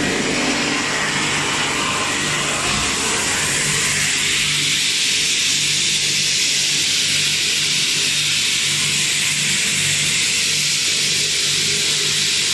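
An ABS/PS/PP plastic granulating line running: a steady machine drone with a strong, even hiss that grows stronger about four seconds in, over a low hum that comes and goes.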